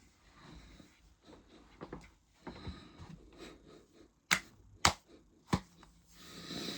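Quiet heavy breathing and handling noise, with three sharp clicks about half a second apart just past the middle.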